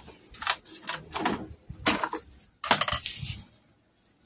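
Hands handling parts and cables inside an opened LCD TV: an irregular run of crackling, rustling noises with sharper clicks, the loudest a little under three seconds in.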